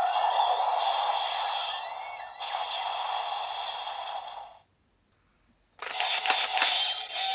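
Electronic sound effects from a DX Fifteen Lockseed toy's small speaker: a long noisy effect that stops about four and a half seconds in, then, after a second of silence, a fresh burst of sharp clicks and warbling tones.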